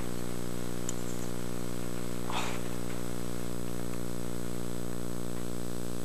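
A steady low buzzing hum with many even overtones, unchanging throughout, with a faint brief rustle about two and a half seconds in.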